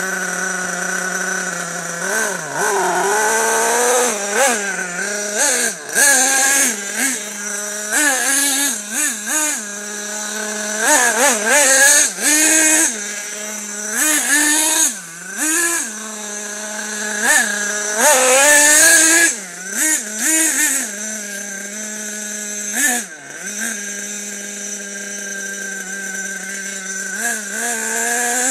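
Nitro RC buggy's small glow-fuel engine running and being revved over and over, its pitch swooping up and down in short bursts between steadier stretches.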